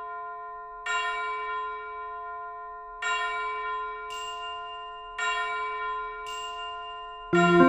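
A bell struck three times, about two seconds apart, each stroke ringing on and slowly fading, with a brief bright shimmer after the second and third strokes. Near the end, keyboard music comes in loudly.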